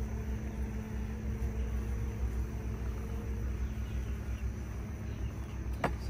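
Honey bees humming steadily around an open hive, a low even drone over a low rumble, with one short sharp knock near the end.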